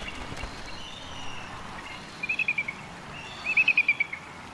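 Bald eagle calling: two rapid series of short, high chittering notes, each falling slightly in pitch, about two seconds in and again, louder, about three and a half seconds in.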